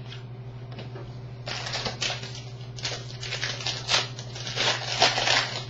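2008 Donruss Threads baseball cards being flipped through by hand: a run of dry, papery rustles and slides starting about a second and a half in, over a steady low electrical hum.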